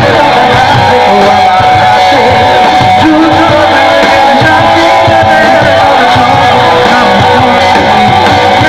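Bengali rock band playing live and loud, with guitar to the fore and sustained notes holding through.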